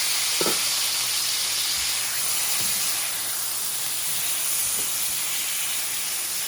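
Water boiling off in a hot frying pan of sliced beets: a steady steam hiss and sizzle that eases slightly about halfway through.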